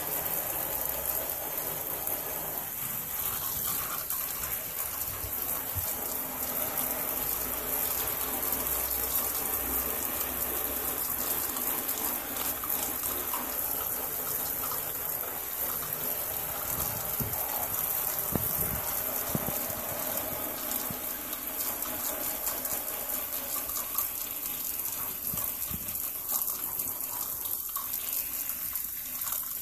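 Shower spray running steadily onto a wet boot and the bathtub floor: a continuous rush of water.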